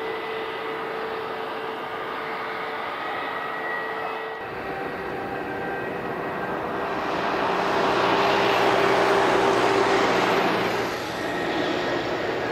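Jet airliner engines on the runway: first a steady run from an Airbus A320neo, then, after a cut, a Boeing 787 whose engine noise swells about seven seconds in and eases again near the end.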